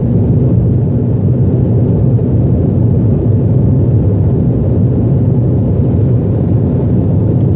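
Airliner cabin noise during takeoff and the first seconds of the climb: the jet engines at takeoff thrust and the rushing air make a steady, loud, low rumble.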